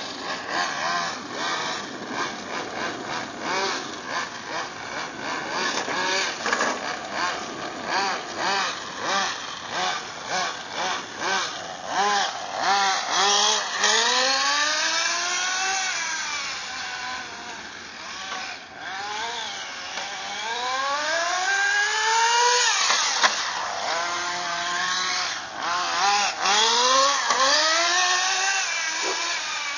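1:10 scale RC car's motor being driven in quick throttle blips, then in longer runs, its pitch rising and falling with speed.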